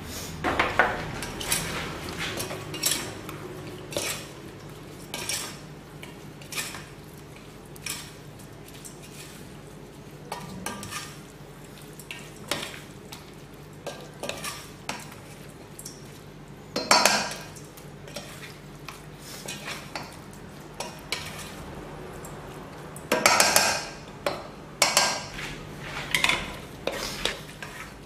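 A spoon stirring and tossing a wet sliced-pork salad in a stainless-steel bowl: irregular clinks and scrapes against the metal about once a second, with a few louder clattering spells.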